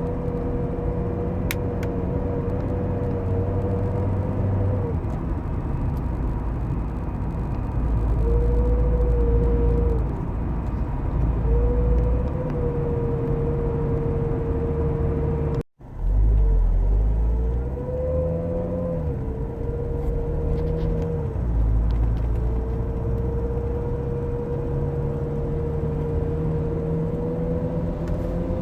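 Lancia Delta III's 1.8 TBi turbocharged petrol engine running over a deep rumble, with a steady whine that drops out and comes back several times. Shortly after a brief break in the sound, the engine pitch rises for a moment and falls back. The whine is the strange sound that the owner reports together with a loss of power.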